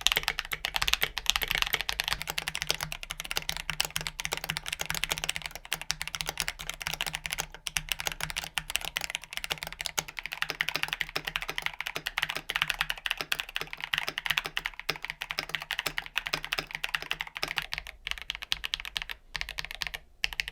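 Continuous fast typing on a KBD67 mechanical keyboard with SA keycaps: a dense run of keystroke clacks that thins out briefly near the end.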